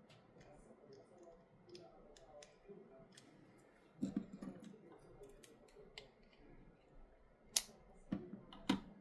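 Faint small clicks and taps of tools and phone parts being handled during a smartphone screen replacement. A brief cluster of knocks comes about four seconds in, and two sharp clicks come near the end.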